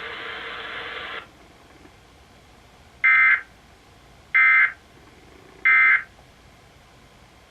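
Emergency Alert System end-of-message (EOM) data bursts: three short, loud, identical bursts of digital warbling tone, about a second and a half apart. They signal that the alert message is over. Before them, a steady background sound cuts off about a second in.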